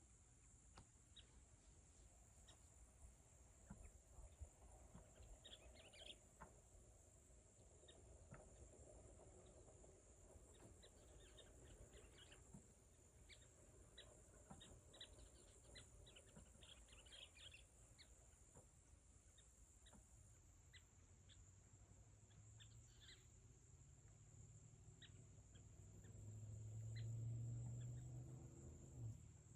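Faint evening farm ambience: a steady high-pitched insect drone with scattered short bird chirps. A low rumble swells near the end and fades.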